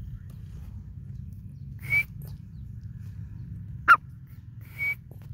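Three short, sharp call notes from a grey francolin, the middle one the loudest, over a steady low rumble.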